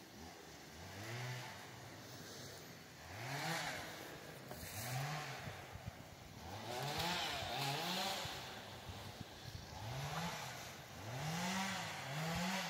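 Chainsaw revved repeatedly in short bursts, each one rising and falling in pitch, several coming in quick pairs.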